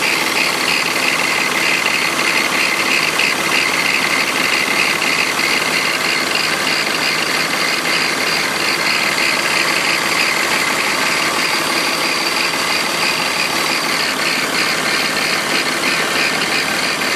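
BMW E46 engine running steadily, with a strange noise that the owner is recording to identify its cause.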